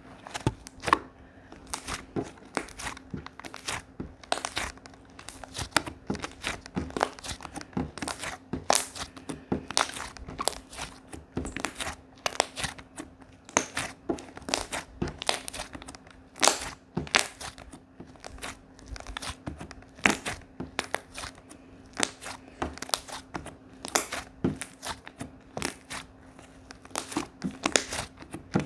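Slime being squished and poked by hand, making irregular sticky pops and crackles, several a second, over a faint steady hum.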